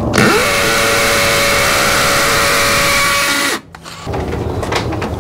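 Cordless DeWalt hammer drill boring into a masonry wall: the motor spins up with a rising whine and runs steadily for about three seconds. It stops briefly, then drills again.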